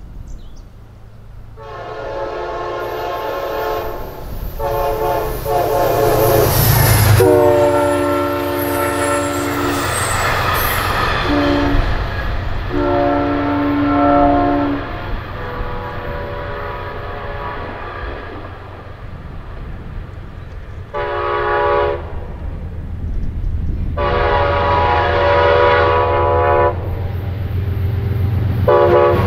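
Amtrak diesel locomotive horns sounding a series of long chord blasts over the low rumble of the trains. About seven seconds in, a train rushes past and its horn drops in pitch as it goes away. Later blasts come from the approaching locomotive.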